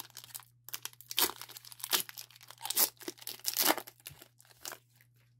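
Foil wrapper of a Pokémon trading card booster pack being torn open and crinkled by hand, in a series of sharp rustling tears.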